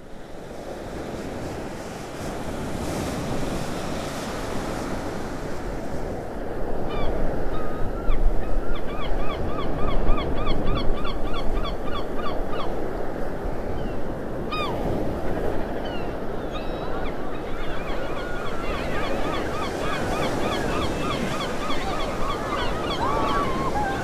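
Waves washing on a beach as a steady surf noise, with seabirds calling over it in fast runs of repeated cries, several a second, about a third of the way in and again through the last third.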